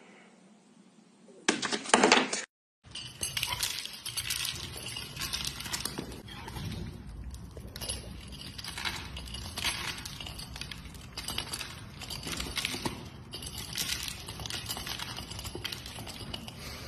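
A cat and a duck eating dry kibble from a plastic bowl: steady, uneven crunching with the pellets clicking and rattling as the duck's bill works through them. A brief loud clatter comes just before the cut to the feeding.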